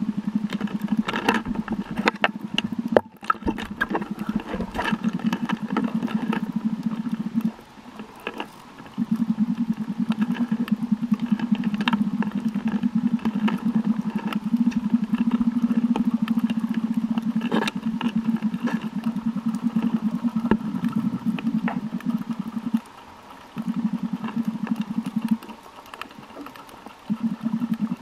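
Boat motor heard underwater: a steady low engine hum that cuts out briefly three times, with scattered sharp clicks and ticks over it.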